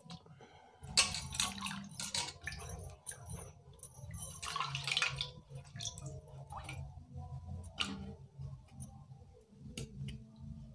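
Water splashing and dripping in a steel pot as a papaya is rubbed and turned by hand to wash it, in irregular bursts, with a few sharp clicks later on.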